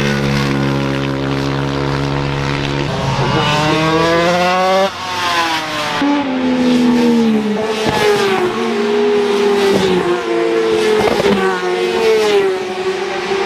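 Racing motorcycle engines at high revs. The pitch climbs as a bike accelerates, drops suddenly about five seconds in, and falls away over the next two seconds as a bike goes by. After that another engine holds a high, wavering note while it approaches and passes near the end.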